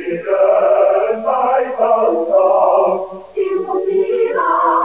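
Background music of a group of voices singing, a choir, with a brief break a little past three seconds in.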